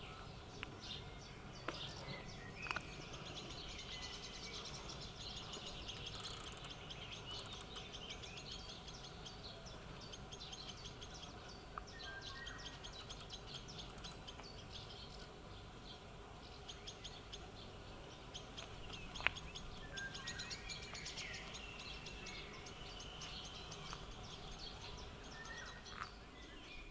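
Several songbirds singing and chirping in rapid high trills over a steady low background noise, with two brief sharp clicks, one a few seconds in and one about two-thirds of the way through.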